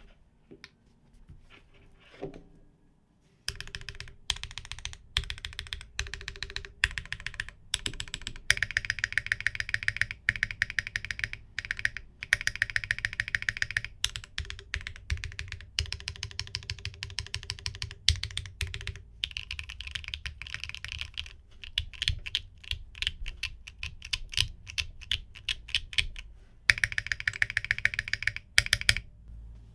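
Typing on a custom 60% gasket-mounted mechanical keyboard, a GDK DK1-60 with an aluminium plate, MMD Princess Tactile v5 switches and DMG-profile keycaps. The keystrokes start about three and a half seconds in and go on as fast runs of clicks, stopping just before the end.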